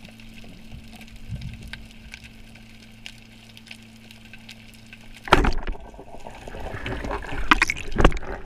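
Rubber-band speargun fired underwater: a sudden loud shot about five seconds in, followed by churning water and loud knocks as the speared fish is pulled in. Before the shot there are only faint clicks over a low steady hum.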